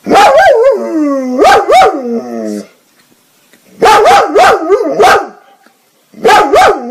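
A dog barking in three bursts of several quick barks each, with short pauses between bursts. Some barks trail off in a falling whine.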